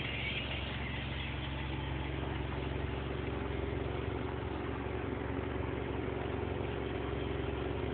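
Chevrolet Chevette's four-cylinder engine idling steadily, with a low rumbling note from its exhaust muffler.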